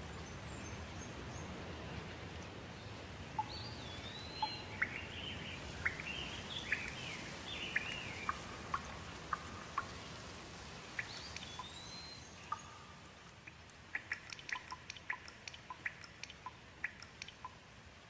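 Steady rain with birds calling and chirping over it. About two-thirds of the way in the rain thins, leaving a quick run of short, sharp chirps.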